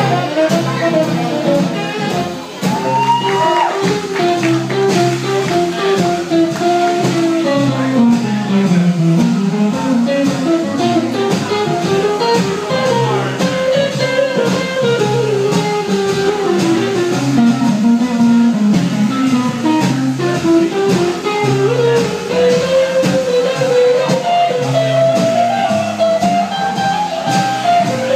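Small trad jazz band playing an instrumental chorus: a lead melody winding up and down over guitar chords, upright bass and drums.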